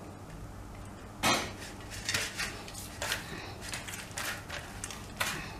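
Rice-flour dough being kneaded by hand on a stainless steel plate: short knocks and scrapes of the plate, the loudest about a second in, then a string of lighter ones.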